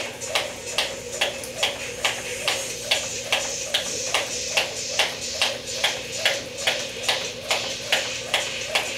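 Jump rope skipping at a steady pace: the rope and feet tapping the floor in an even rhythm, about three sharp taps a second.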